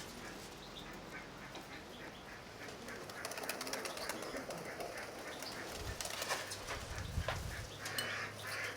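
Pigeons cooing and other birds calling, with a gust of wind rumbling on the microphone from about six to eight seconds in.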